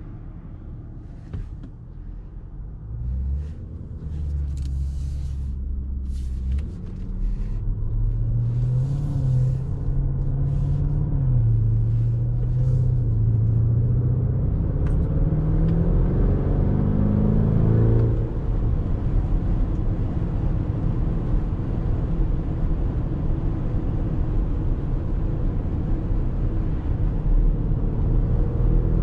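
2019 Lamborghini Urus's twin-turbo V8, heard from inside the cabin while accelerating from low speed. The engine pitch climbs until an upshift about two-thirds of the way in drops it, then the engine and road noise build steadily as speed rises.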